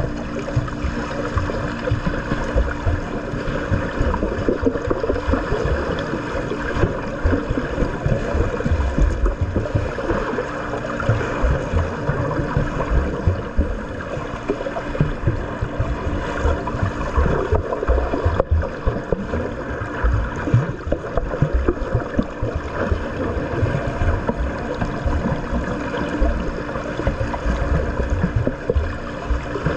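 Continuous churning and splashing of pool water as swimmers swim, with irregular low thumps.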